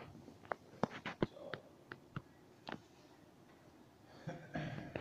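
Snooker balls clicking together: a run of about a dozen sharp, separate clicks over the first three seconds.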